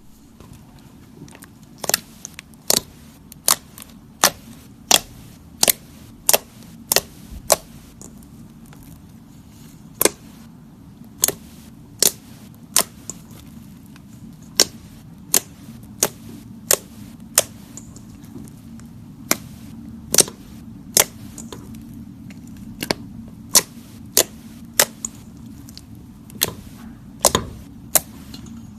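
Slime being squeezed and worked by hand, giving sharp popping clicks as air pockets burst, roughly one to two a second and unevenly spaced, over a low steady hum.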